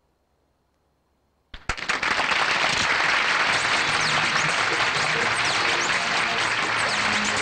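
Near silence, then about a second and a half in a large audience breaks into applause that continues steadily, with a few short whistles over it.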